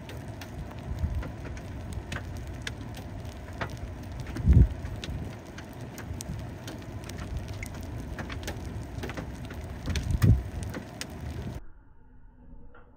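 Hailstorm: many hailstones striking in a dense patter of sharp ticks over a steady hiss, with a few heavy low thumps, the loudest about four and a half seconds in. The sound cuts off suddenly about a second before the end.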